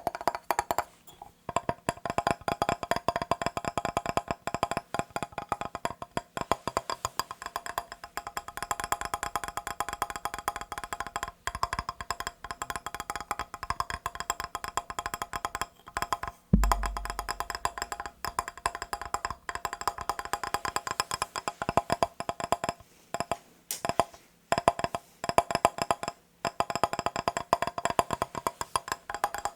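Fast, continuous tapping on a mirror, many taps a second with a light ringing of the glass, broken by a few short pauses. A single low thump about halfway through.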